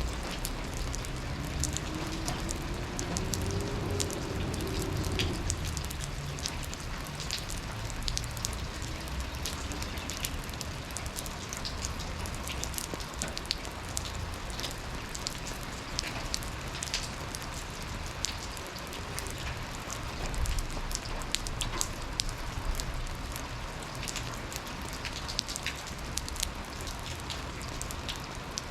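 Steady rain falling in a yard, individual drops tapping sharply on hard surfaces over a constant hiss of rainfall. A faint low tone rises and then falls in the first few seconds.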